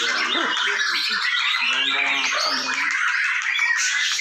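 Many caged white-rumped shamas singing at once in a contest, a dense continuous chorus of overlapping whistles, chirps and trills.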